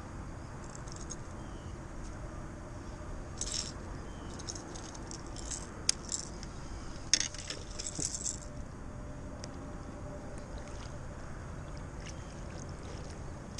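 A run of light clicks and small metallic rattles from fishing tackle being handled: a baitcasting rod, reel and lure. The clicks cluster from about three to eight seconds in, sharpest around the middle, over a steady low background noise.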